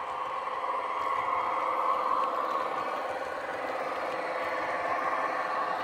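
ESU sound decoders in two Piko class 612 (Regio-Swinger) model diesel railcars running in tandem, playing a steady diesel engine sound through the models' small speakers, swelling slightly about two seconds in.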